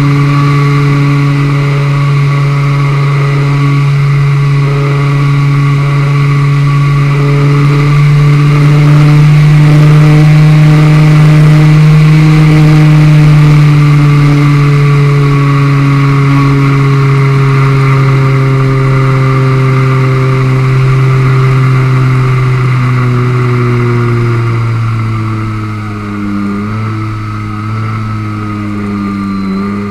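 The ST Models Discovery RC plane's motor and propeller, heard from on board, running steadily at one pitch with wind rushing over the airframe. In the last few seconds the pitch drops and wavers and the sound grows quieter as the throttle is eased back for an emergency landing.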